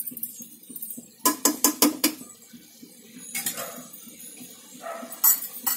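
A metal spoon stirring a thick mutton curry in an aluminium pot, knocking and scraping against the pot's sides, with a quick run of about four clinks about a second in and a few more later.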